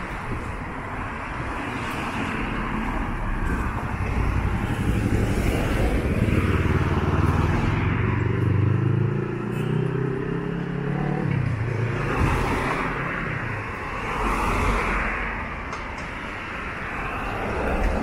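Road traffic going by, cars passing one after another. In the middle a motor vehicle's engine passes close by, its pitch falling as it goes.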